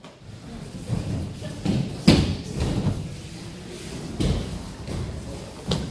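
Aikido practitioners landing on tatami mats in breakfalls: a series of about six separate thuds, the loudest and sharpest about two seconds in.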